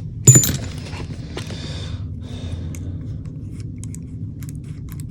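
Airsoft gearbox parts being handled: one sharp click about a third of a second in, then soft rattling and scattered small clicks.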